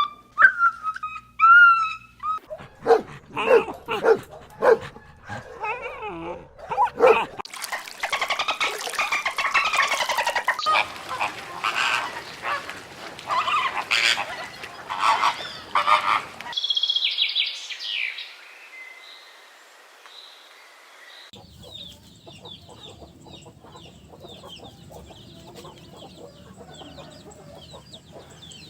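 A run of different animal calls, one kind after another: loud, dense calling through the first half or so, then fainter high-pitched bird chirping for the last several seconds.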